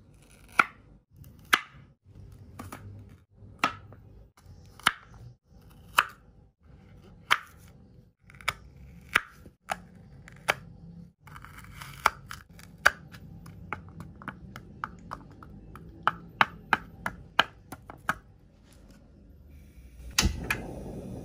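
Knife cutting shallots and garlic on a wooden cutting board: sharp knocks of the blade on the board about once a second, coming quicker in the middle. Near the end a portable gas stove is lit with a sharp click of its igniter, and the burner goes on with a steady hiss.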